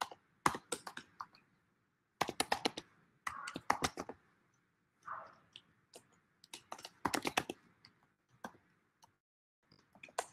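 Typing on a computer keyboard, in quick runs of keystrokes with short pauses between them.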